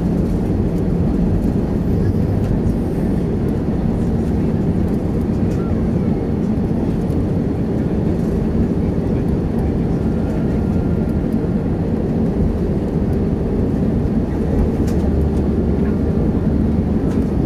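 Steady low cabin rumble inside an Airbus A320 taxiing on the ground after landing, its engines running evenly with no change in power.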